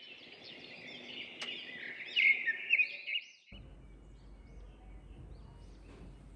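Several songbirds chirping and singing in quick, overlapping calls, loudest a little after two seconds in. At about three and a half seconds the sound cuts abruptly to a quieter outdoor background with a low rumble and faint, scattered bird calls.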